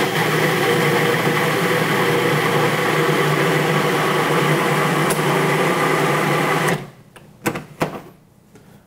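Food processor motor running steadily for about seven seconds, its blade chopping a wet load of herbs, onion, garlic and egg into a purée, then cutting off suddenly. A couple of light clicks follow.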